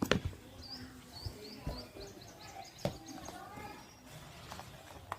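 A small bird chirping in a quick run of about ten short high notes, over faint background voices, with two sharp clicks.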